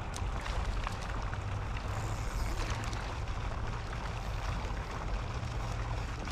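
Steady outdoor noise with a low, fluctuating rumble like wind on the microphone, and a few faint clicks.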